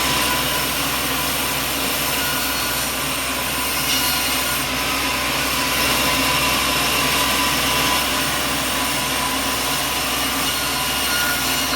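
Sawmill machinery running with a steady drone and hiss that does not let up.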